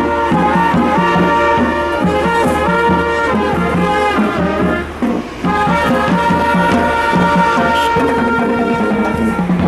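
Marching band playing a tune, with brass and woodwinds together (sousaphone, saxophones, trumpets and flutes), in sustained notes. The sound drops briefly a little past halfway, at a break between phrases, then the band plays on.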